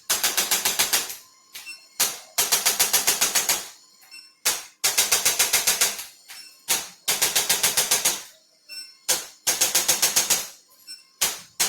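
A handheld chiropractic adjusting instrument firing rapid bursts of sharp clicks, about ten a second, each burst lasting about a second. The bursts repeat every two to three seconds, with single clicks in between.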